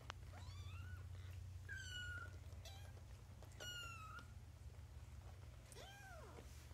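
Newborn kittens mewing: about four thin, high-pitched cries a second or two apart, some rising and one arching up and down in pitch. They are crying for their mother, who is away from the nest. A low steady hum lies under them, with a single click right at the start.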